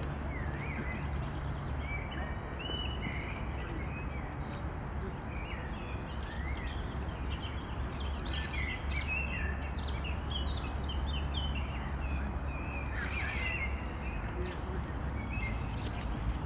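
Small birds chirping and singing, many short calls and quick rising and falling notes, over a steady low hum.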